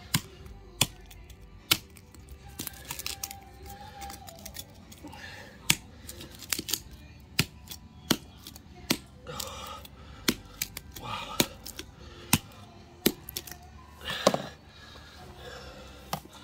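A large snapper's carcass being cut and broken up: irregular sharp cracks of bone, about one a second, with a few longer rasping crunches.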